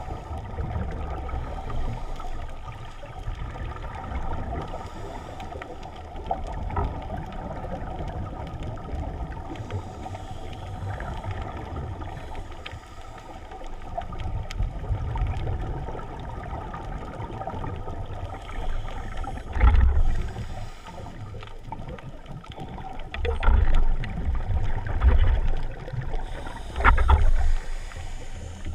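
Underwater sound through a camera's waterproof housing as a diver swims: a steady low rumble of water moving past the housing, with a few louder low gushes in the second half.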